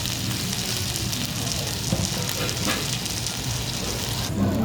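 Chicken sizzling as it cooks: a steady, dense hiss over a low hum, cutting off abruptly near the end.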